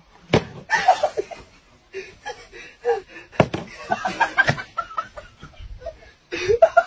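People laughing and chattering, with two sharp knocks, about a third of a second in and about three and a half seconds in, as a small glass is banged down on a hard tabletop.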